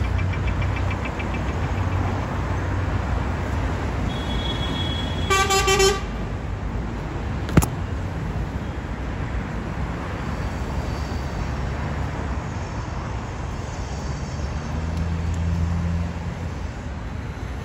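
Street traffic, with engines running steadily and a vehicle horn giving one short honk about five seconds in. A single sharp click follows a couple of seconds later.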